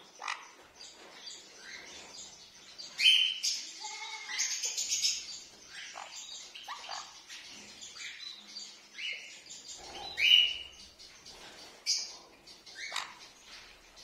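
Sun conures chirping and calling, with a string of short calls that slide downward in pitch. The loudest come about three seconds in and again about ten seconds in.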